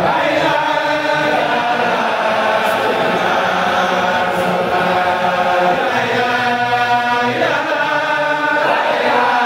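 A congregation of men and boys chanting a devotional chant together in unison, with long held notes that slowly glide in pitch.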